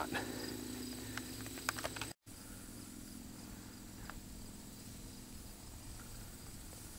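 Steady high-pitched chorus of late-summer insects, with a few light clicks in the first two seconds. The sound cuts out for an instant about two seconds in, and the chorus goes on fainter after it.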